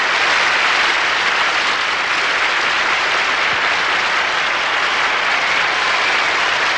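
An audience applauding, a loud, steady, unbroken wash of clapping.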